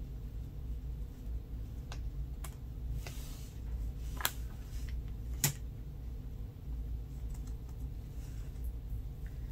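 A few light clicks and taps of hard cured resin pieces being handled and set down on a plastic tray, the two sharpest a little past the middle, over a steady low hum.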